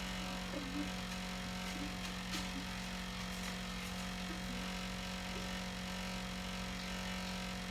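Room tone: a steady low hum under a faint even hiss, with a few faint distant sounds and one light click.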